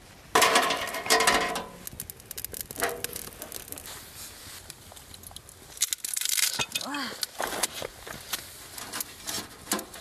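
Clinks and knocks of firewood and stainless steel being handled around a small camp fire box, over the light crackle of a freshly lit wood fire. The loudest sound is a metallic clatter with ringing near the start.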